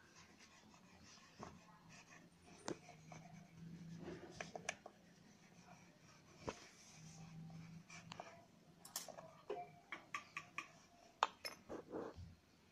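Faint, irregular taps and clicks of plastic fondant modelling tools against a wooden tabletop while fondant petals are shaped, with the clicks coming more often in the last few seconds.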